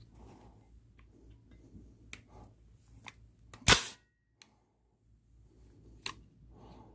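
300 Blackout rifle being handled: a few small metallic clicks, then one sharp, loud metallic clack a little past halfway, as the action slams shut after the magazine goes in, and one more click near the end.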